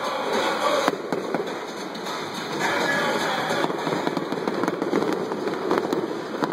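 A fireworks display going off in quick succession: a continuous crackle with sharper bangs scattered through it.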